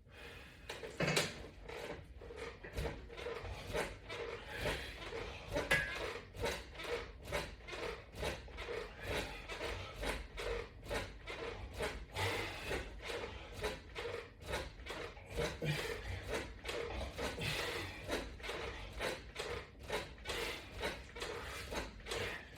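Exercise equipment rubbing and creaking in an even rhythm, about two pulses a second, as crunch reps are worked against resistance straps.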